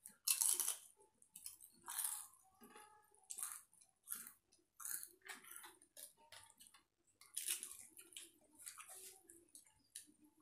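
Eating by hand at close range: irregular crunching and chewing of fried papad, mixed with wet squishing of watered rice (panta bhat) being mashed with the fingers on a steel plate. The loudest crunch comes about half a second in.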